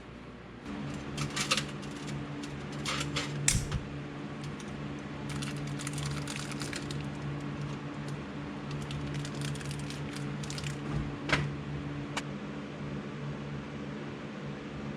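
A steady mechanical hum that starts about a second in, with scattered clicks and knocks of metal parts being handled.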